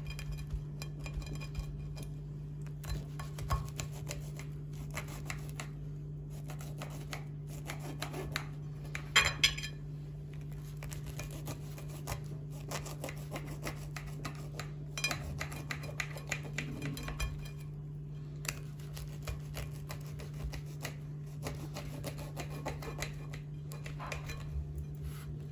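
Knife slicing through a baked semolina cake in a glass dish: many small scrapes and ticks as the blade cuts and touches the glass, with one louder clink about nine seconds in. A steady low hum sits underneath.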